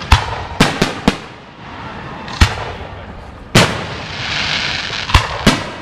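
Aerial firework shells bursting: about eight sharp bangs at uneven intervals, some in quick pairs. About four seconds in, a hiss lasts for about a second among the bursts.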